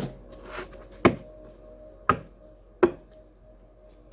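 Four sharp taps or slaps on a tabletop, roughly a second apart, over a faint steady hum.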